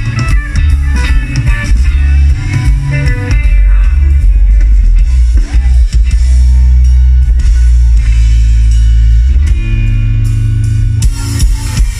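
A rock band playing loudly live: electric guitar and drum kit over a heavy bass. Busy drumming at the start and again near the end frames a stretch of held chords in the middle.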